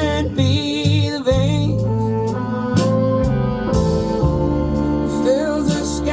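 Music: a slow song with guitar accompaniment and a sung vocal line that holds and bends long notes.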